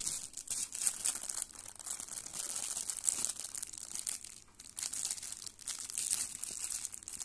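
Clear plastic wrapper on a pack of stacking-point (non-sharpening) pencils crinkling as fingers squeeze and turn it, in irregular crackles.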